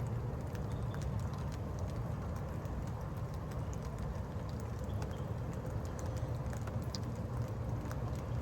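Steady rain with scattered drops tapping, over a low steady rumble.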